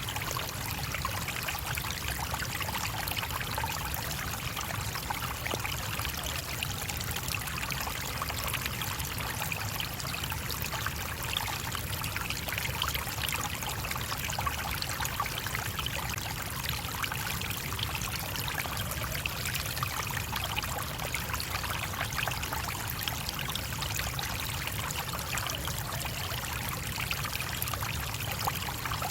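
A small stream babbling and trickling steadily over stones.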